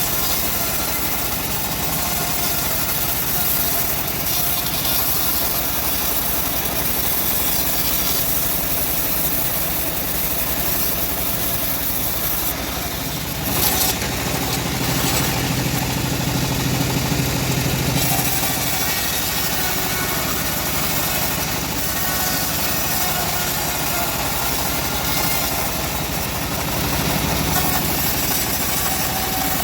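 Engine-driven bandsaw sawmill running steadily while sawing a log. About fourteen seconds in there is a knock, then a low hum grows louder for about four seconds.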